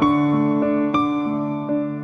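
Background music: slow, gentle keyboard chords, struck at the start and again about a second in, each note fading away.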